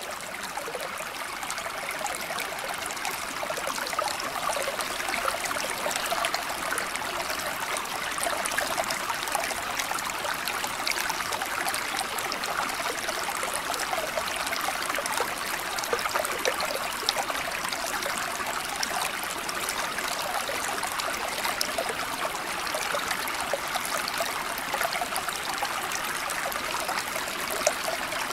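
Steady running water, like a stream trickling over stones, holding an even level throughout.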